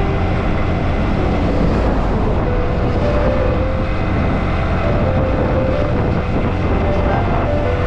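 Steady wind rush and road noise from riding a motorbike along a highway, heaviest in the low end and without a break.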